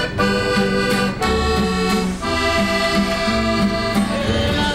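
Background music: held chords changing every second or so over a steadily pulsing bass line.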